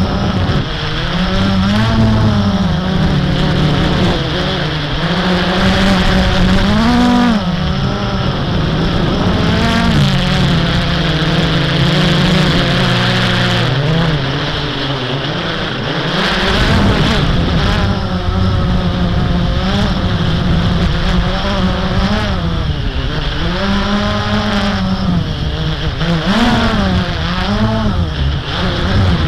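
Blade 350 QX quadcopter's electric motors and propellers whirring steadily, their pitch rising and falling every second or two as the throttle changes in flight.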